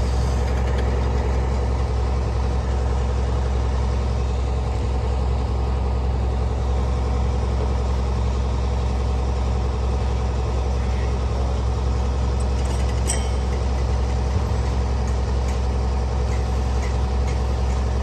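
Heavy diesel truck engines running steadily at high idle with a deep, constant hum, typical of a concrete pump truck and ready-mix truck during a pour.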